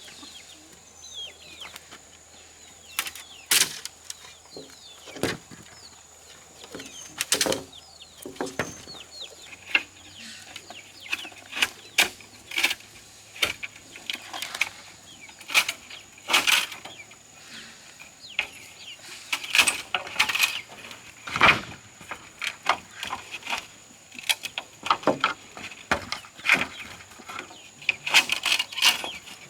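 Irregular sharp knocks, one every second or two at first and coming faster near the end, with birds chirping faintly in the background.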